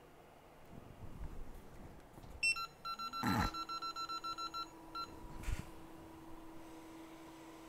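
A hot-air rework station beeps in a quick run of short electronic beeps, about five a second, while its blower hum rises and then holds steady as it starts up. A few soft handling knocks come before and after the beeps.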